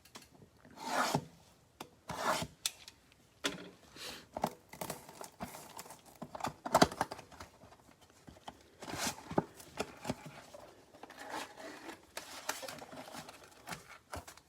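A sealed trading-card box being opened by hand: irregular rubbing, scraping and tearing of the wrap and cardboard, with several sharp clicks.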